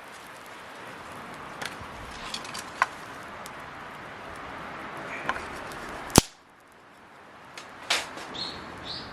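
Wood fire crackling, with a steady hiss and scattered sharp pops, the loudest about six seconds in, after which the hiss drops away abruptly. A couple of short high chirps near the end.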